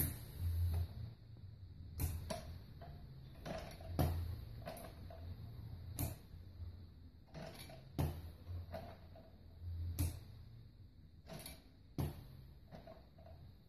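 Pneumatic Chuck E. Cheese Pizza Time Theatre animatronic cycling through its movements: sharp mechanical clicks and short air bursts from its valves and cylinders, most regularly about every two seconds, with low thumps and creaks of the moving parts.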